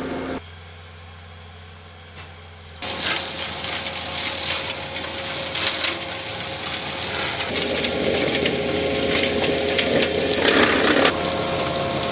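Heavy machinery running with a rough, clattering mechanical noise over a steady low hum, changing abruptly three times: quieter for about two seconds near the start, then louder again.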